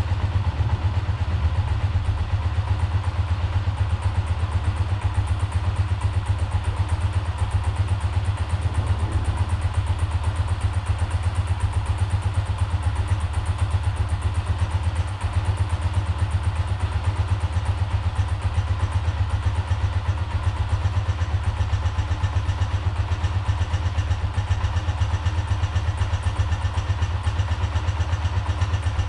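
Honda CGL 125's air-cooled single-cylinder four-stroke engine idling steadily, with an even, low exhaust beat.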